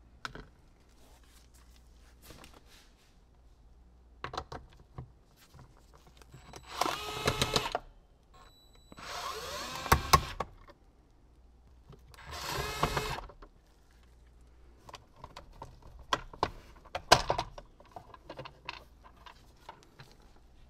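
A power drill running in three short bursts, among clicks and knocks of tools and parts being handled.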